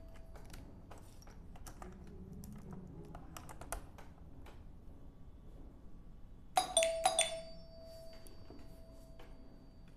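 Light clicks and taps from handling wires and screw terminals, then, about six and a half seconds in, a quick run of four metallic strikes that leave a clear bell-like ringing tone, which fades slowly over the next few seconds.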